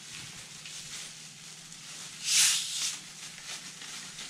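Plastic Sprite bottle's cap being twisted open: a short, loud hiss of escaping carbonation gas about two seconds in, over a faint steady fizz.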